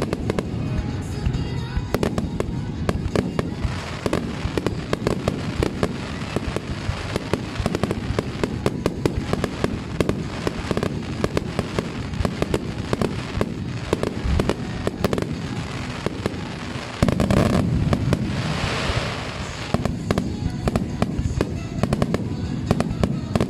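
Aerial fireworks shells bursting in a rapid barrage, several sharp bangs a second. The barrage grows louder and denser for a couple of seconds about two-thirds of the way through.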